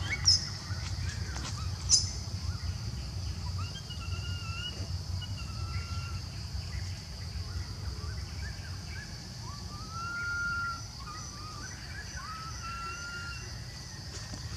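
Young macaque crying with repeated thin, whistle-like calls, each a short tone that rises and then levels off: distress calls of a juvenile separated from its mother. Two sharp high chirps near the start are the loudest sounds, over a steady high buzz.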